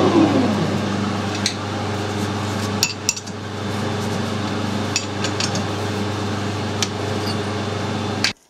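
Metal lathe with a four-jaw chuck running down, its pitch falling at the start, then a steady machine hum with a handful of sharp metal clinks. The hum cuts off suddenly near the end.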